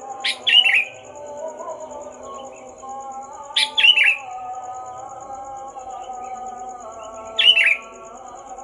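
Sooty-headed bulbul (kutilang) calling three times, each a short loud burst of quick chirping notes, about three and a half seconds apart. Background music with held tones plays underneath, with a steady high pulsing tone.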